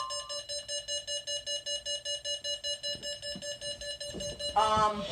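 Weather alert radio's built-in alarm sounding: a rapidly pulsing, buzzer-like electronic tone that signals an incoming warning. It cuts off near the end.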